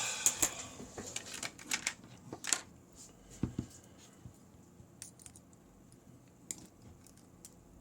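Small metallic clicks and clinks of an American Lock Series 5200 padlock and a screwdriver being handled. There are several in the first few seconds, then only a few sparse ones.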